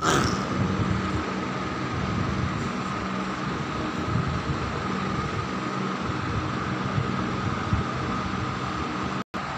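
Steady mechanical hum and hiss with a thin, constant high whine, like a running fan or appliance; the sound cuts out briefly near the end.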